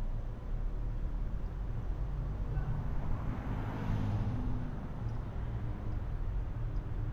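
Car driving at low speed: a steady low rumble of engine and road noise, with a rushing swell about three to four seconds in.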